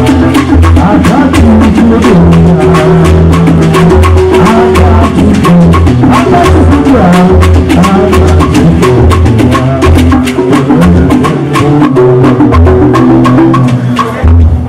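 Loud Igbo ogene band music: rapid, sharp percussion strikes over a pulsing bass line and sustained pitched notes.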